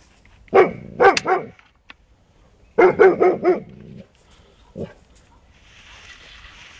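Newfoundland dog barking at a hedgehog: a quick run of three barks, a run of four about two seconds later, then one more single bark.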